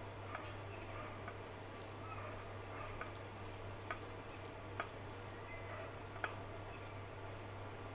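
Fingers squishing and mixing cooked rice with dal on a plate, with a handful of small sharp clicks scattered through it.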